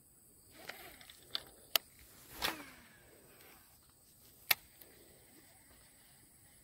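A baitcasting reel being cast. A couple of sharp clicks come first, then a whir that falls in pitch as the spool pays out line, and another sharp click about two seconds later.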